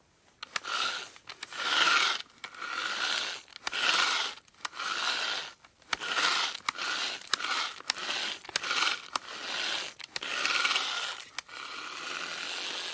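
Manual hand drill being worked in repeated strokes, each a rasping, grinding scrape of the bit, about one a second, with short sharp clicks between strokes.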